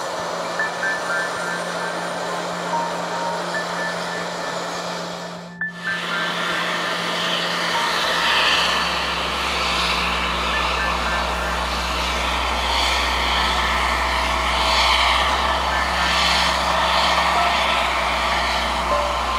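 Jet engines of an Air France Airbus A320-family airliner running at idle as it taxis, a steady rushing whine. After an abrupt cut about six seconds in, a steady low hum with hiss, a little louder, from a parked Air France Boeing 777 and the ground service equipment around it.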